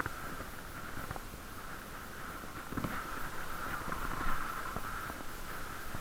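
Bicycle being ridden, heard muffled through a waterproof camera case, with faint irregular ticks from the bike. This is a ticking noise of unknown cause that the rider wants a bike shop to trace.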